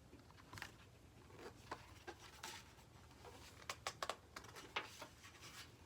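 Faint scattered clicks and light rustles, a handful of soft taps and brushing sounds over a near-silent room.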